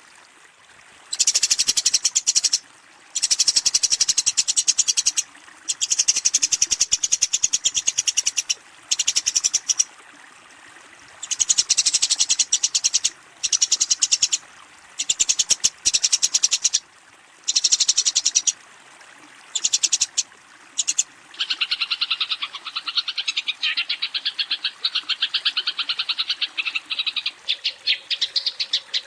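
Eurasian tree sparrows giving rapid, harsh chattering fighting calls that challenge a rival, in bursts of one to two seconds separated by short pauses. From about two-thirds of the way in, the chatter drops lower and runs on with fewer breaks.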